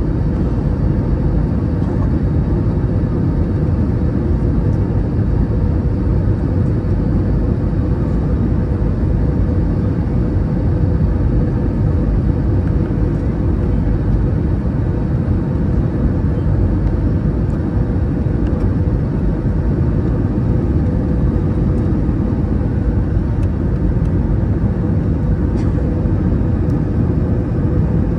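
Steady cabin noise of an Airbus A321 on final approach with landing gear and flaps extended: airflow rumble and its IAE V2533-A5 engines running, with a faint steady hum under it.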